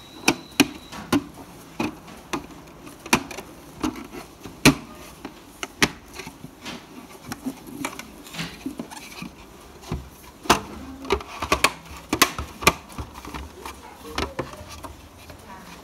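White hard-plastic parts of an IKEA BYGGLEK LEGO storage box being handled and fitted: irregular clicks and knocks of plastic on plastic, some sharp, spread all through.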